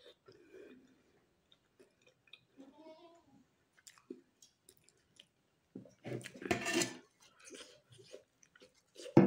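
Close-miked chewing and small wet mouth clicks of a person eating rice and curry, with a louder noisy stretch about six seconds in and a sharp knock at the very end.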